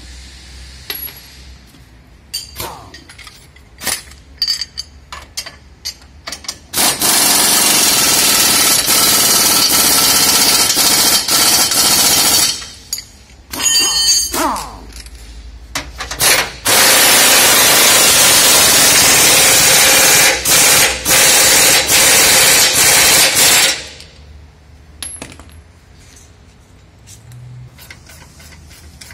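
Air impact wrench hammering in two long bursts of several seconds each, the second broken by a few brief pauses. Short clicks and clanks of hand tools come before and between the bursts.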